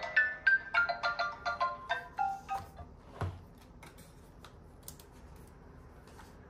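A short music cue of quick, high pitched notes, stopping about three seconds in, followed by a single low thump; after that only faint clicks.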